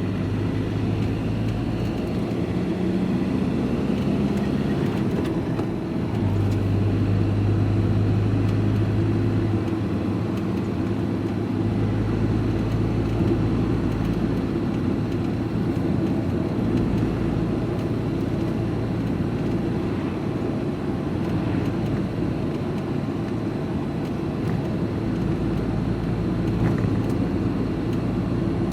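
A lorry's diesel engine running steadily as it drives along, heard from inside the cab, with the engine note shifting a few times as the speed changes.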